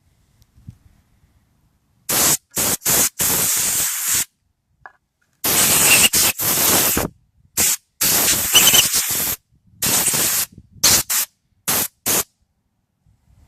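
Compressed air hissing from an air-compressor blow gun in a series of short and longer blasts, starting about two seconds in, blowing debris out of a Stihl chainsaw.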